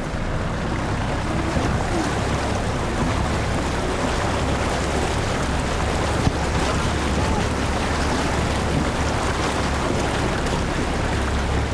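A vehicle's engine runs with a steady low drone under an even rushing noise of tyres and movement as it drives along the rough lane.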